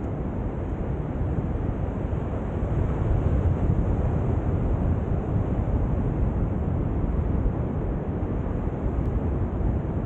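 Wind blowing across the microphone: a steady low rumble that grows a little louder about three seconds in.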